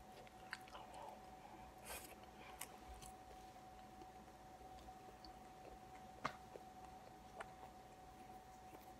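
Near silence: faint room tone with a steady faint hum and a few soft, scattered clicks, mouth sounds from chewing a bite of burrito.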